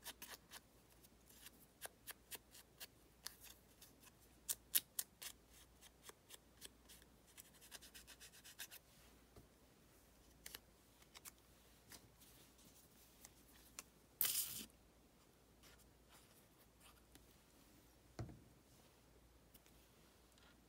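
Foam ink-blending tool dabbed against the edges of a small piece of paper: a string of faint, soft taps, running quicker for a moment about eight seconds in. Later comes a brief rustle of paper, and near the end a single light knock on the table.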